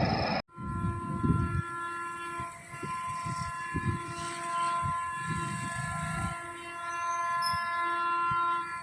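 Train horn held in one long blast of several tones together for about eight seconds, with a low rumble from the train under it. It starts right after loud passing-train noise cuts off abruptly about half a second in, and it stops near the end.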